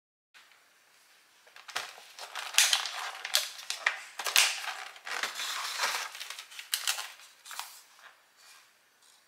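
Thin clear plastic food packaging (an egg carton and lidded supermarket trays) crackling and clicking as it is handled, in a quick run of sharp crinkles that thins out near the end.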